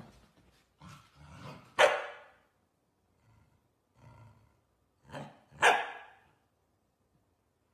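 A corgi barking in short, sharp barks at another dog, a few quieter ones and two loud ones, about two seconds in and near six seconds.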